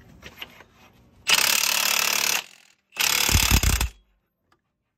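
Cordless impact wrench hammering in two bursts of about a second each, with a short pause between them. It is driving a homemade puller bolt into the primary drive clutch of a Polaris RZR Trail S 1000 to press the stuck clutch off its shaft.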